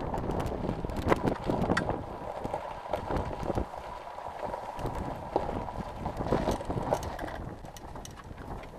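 Gravel crackling and popping under the tyres of a Zenith CH-701 light aircraft taxiing along a gravel road: many irregular sharp clicks over a low rumble.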